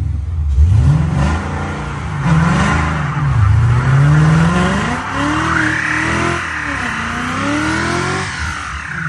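Gen 1 Ford Coyote 5.0-litre V8 in a Foxbody Mustang revving up and down again and again through a burnout, the rear tyres spinning and squealing against the floor.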